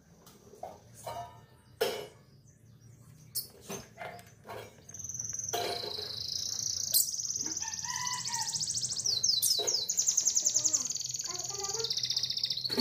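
Domestic canary singing: a few short chirps, then about five seconds in a long, fast rolling trill held high in pitch for most of the rest, with lower warbled notes and glides mixed in.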